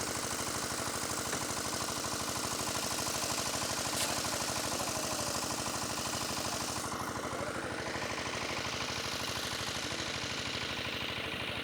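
An engine running steadily at a constant speed, with a fast, even pulsing.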